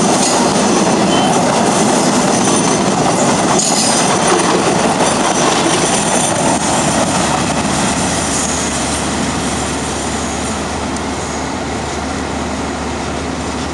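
KTM passenger coaches rolling past close by, their wheels running on the rails. The last coach goes by about six seconds in, and the sound fades slowly as the train draws away.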